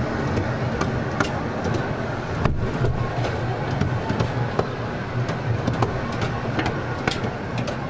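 Open-air safari train running, with a steady low rumble and irregular rattling clicks from the cars.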